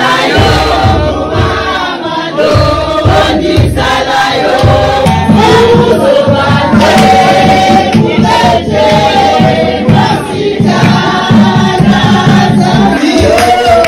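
A crowd of people singing together in a packed room, over a steady low rhythmic beat.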